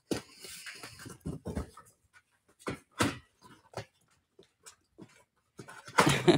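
Utility knife slitting tape on a cardboard box and the box flaps being pulled open: an irregular run of short scrapes and rustles, busiest about six seconds in.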